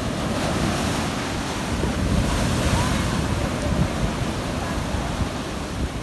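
Heavy surf on a sandy beach: big waves breaking and foam washing up the shore in a continuous rush that swells louder midway. Wind buffets the microphone.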